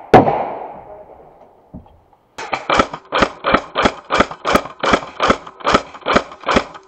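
A loud blast that echoes and dies away over about a second and a half, then, from about two and a half seconds in, about a dozen sharp single shots from an airsoft rifle at roughly three a second, each with a short echo.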